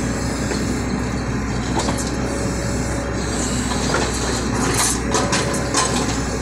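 Hydraulic excavator's diesel engine running steadily. Toward the end come a few sharp metal knocks from the loose steel track chain as the bucket pushes against it.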